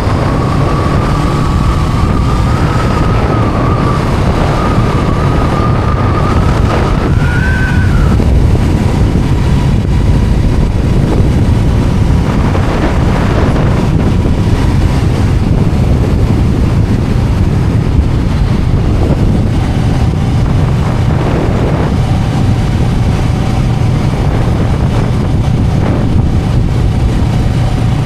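Honda Rebel 500's parallel-twin engine running steadily while riding, under heavy wind noise on the microphone. A thin high whine sounds for the first eight seconds, rising briefly just before it stops.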